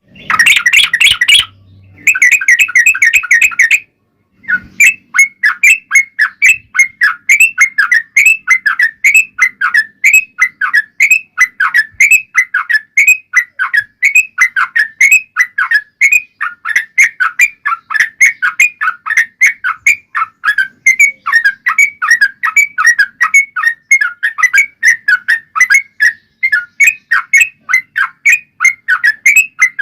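Yellow-vented bulbul (trucukan) song: dense, chattering bursts for the first few seconds, then a long unbroken run of quick, falling chirps, about three a second.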